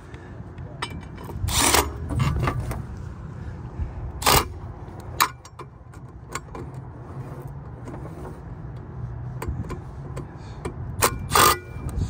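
Milwaukee cordless drill-driver with a nut-driver bit running in three short bursts, about two, four and eleven seconds in, driving screws into the bottom plate of a blower motor. There are small clicks of handling between the bursts and a steady low rumble underneath.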